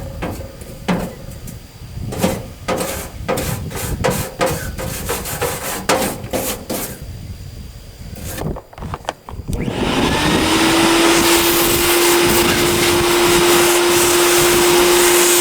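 A hand scraper and brush scrape and scrub inside a camper's propane-tank compartment in short, irregular strokes, likely loosening old silicone and debris. About ten seconds in, an electric motor spins up with a rising whine and then runs steadily and loudly with a rush of air.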